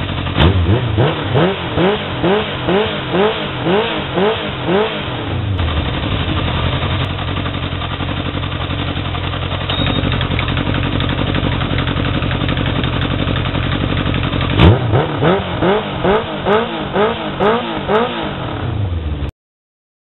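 Yamaha XJ600N air-cooled inline-four revved in a series of quick throttle blips through a Delkevic aftermarket exhaust with the dB killer baffle fitted. After a cut about five and a half seconds in, it runs steadily with the dB killer removed. It then takes another series of quick blips and cuts off just before the end.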